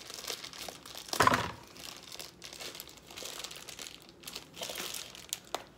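Clear plastic bag crinkling and rustling as it is handled and pulled open, with a louder burst about a second in.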